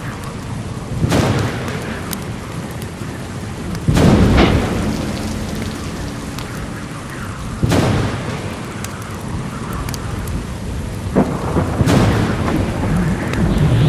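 Thunderstorm sound effect: steady rain with about five sudden thunder cracks, each dying away over a second or so, the loudest about four seconds in.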